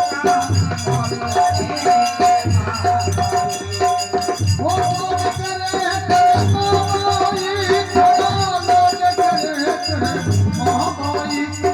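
Murli (gourd pipe) duet: a steady held drone note with a wavering, ornamented melody above it, over shaken rattle-like percussion and a beat.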